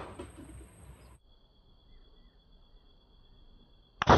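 Steady high-pitched insect chirring over quiet rural air. About four seconds in, a homemade marble toy gun fires with a sharp double snap.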